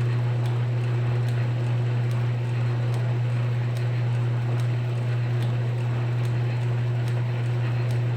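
Metal lathe running steadily with a strong low hum, faint regular ticks about twice a second over it, set up for single-point threading.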